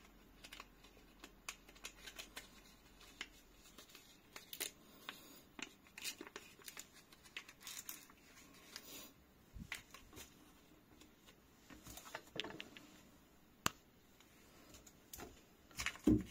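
Faint crinkling and rustling of a small clear plastic packaging bag being handled, with scattered light clicks and taps. A louder rustle comes near the end.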